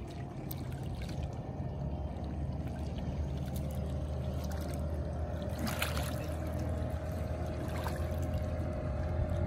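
Outboard motor of a small motorboat running steadily on the lake, a low drone with a higher tone joining about halfway and growing a little louder, over water lapping at the shore.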